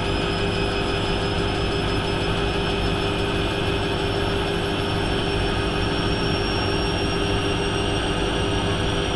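Hotpoint Aquarius WMF70P washing machine running steadily: a continuous rumble with several high, unchanging whining tones over it.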